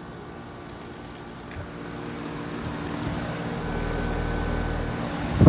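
Outdoor heat pump units running: a steady mechanical hum of compressors and condenser fans, growing louder and deeper over the second half.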